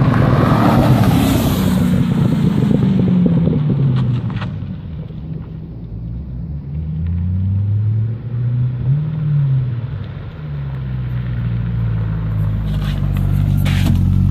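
Porsche 996 with a swapped-in LS3 V8 driving by. The engine note is loud and falls in pitch over the first few seconds, fades, rises again as the engine revs up about eight seconds in, then settles to a steady low rumble that grows louder as the car draws up close near the end.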